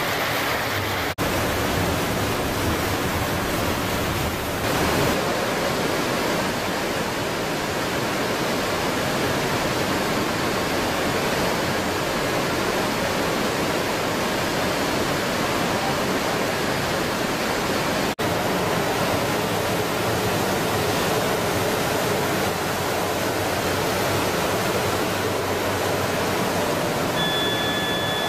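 Steady rushing of water churning in the tank of an industrial cook-quench-chill system for pasta. A faint high whine comes in near the end.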